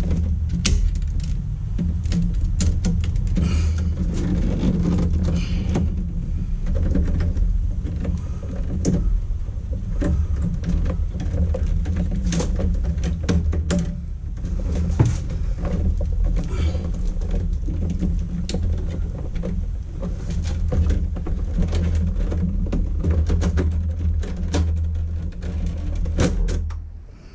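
Hands working wiring and a cable out of a metal breaker panel: irregular clicks, taps and scrapes of wire against metal, over a steady low rumble.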